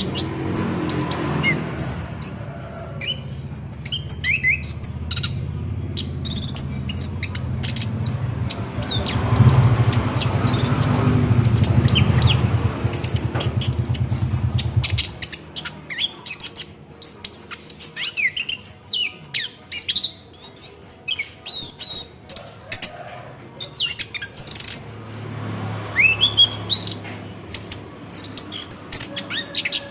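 Orange-headed thrush singing a fast, continuous rolling song of varied whistled and chattering phrases, with no pauses. A low rumble runs under the song for the first half and cuts off suddenly.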